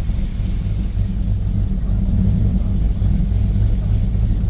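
Trailblazer SS's 6.0-litre LS2 V8 running with a steady low rumble as the SUV is driven at low speed.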